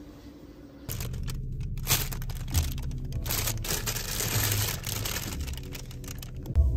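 Rustling and crinkling handling noise with scattered sharp clicks, starting about a second in; music starts right at the end.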